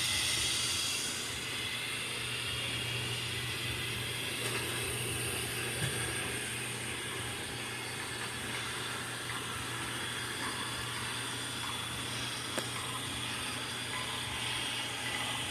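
Robot vacuum running: a steady motor hum and suction hiss, with two faint clicks a few seconds apart.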